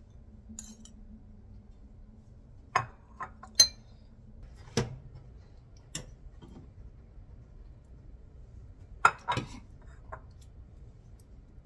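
Dishes and kitchen utensils clinking and knocking together in a handful of separate, scattered strikes as food is portioned into servings.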